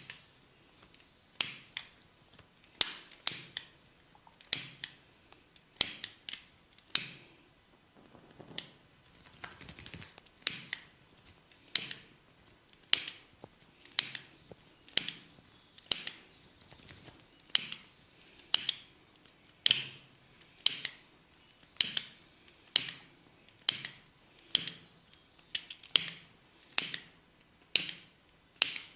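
Hair cracking during a head massage: tufts of hair are gripped and snapped, giving sharp crackling snaps about once a second, now and then two in quick succession.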